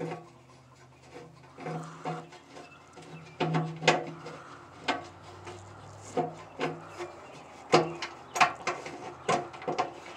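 Irregular clicks, taps and scraping of a wrench on the lid hinge bolts of a Maytag Model 31 washer as they are loosened, metal knocking on the aluminum lid, with a few louder knocks near the middle and later on.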